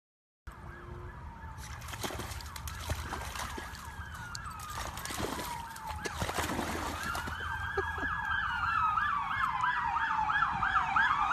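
Emergency vehicle siren wailing, its pitch slowly falling and rising, joined about eight seconds in by a second siren in a fast yelp. Scattered splashing and clicking noises come in the first half.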